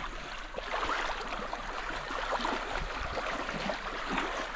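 Shallow seawater sloshing and trickling around feet wading over soft, squishy wet sand, full of small irregular crackles and splashes.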